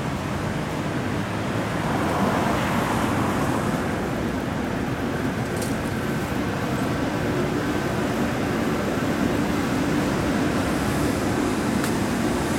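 Steady city street traffic noise, with a faint steady hum joining in about five seconds in and fading out a few seconds later.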